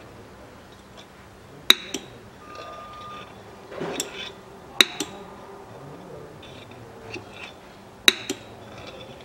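Oil pump being worked to force new gear oil through a hose into a rear differential: three pairs of sharp metallic clicks, roughly every three seconds.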